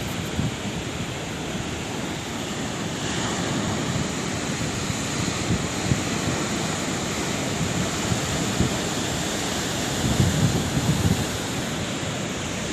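Sea waves washing onto a shore: continuous surf, with a wave building about three seconds in and a louder break near the end.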